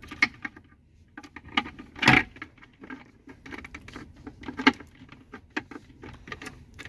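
Light plastic clicks, taps and rattles of a clip-on phone-charging adapter piece being worked onto the charging connector plate in a car's centre console, with a sharper knock about two seconds in and another near five seconds.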